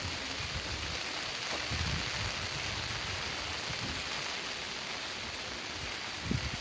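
Steady rushing of a fast-flowing mountain stream swollen by heavy rain, mixed with the hiss of falling rain. A few soft low bumps sound about two seconds in and near the end.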